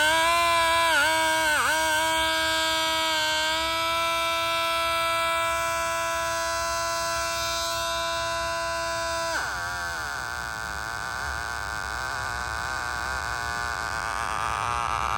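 Homemade 12-volt bicycle siren sounding a steady, buzzy electronic tone through a small speaker. The pitch dips briefly twice in the first two seconds, and about nine seconds in the tone breaks into a rougher, wavering sound.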